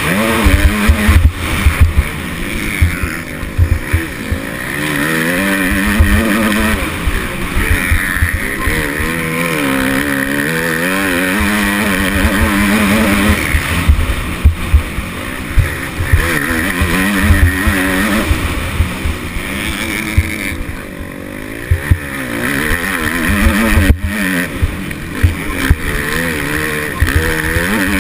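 Motocross bike engine racing around a dirt track, its pitch rising and falling over and over as the throttle opens and shuts, easing off briefly about three-quarters of the way through. Heavy low wind buffeting on the helmet-mounted microphone runs underneath.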